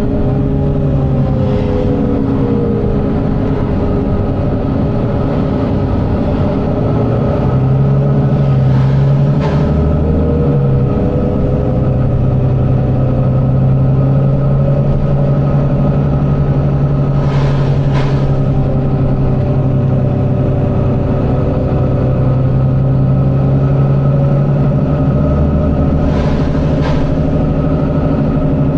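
Volvo B9TL bus's diesel engine running with a steady drone, heard from on board. Its note shifts a few times, and a fainter whine glides up and down in pitch.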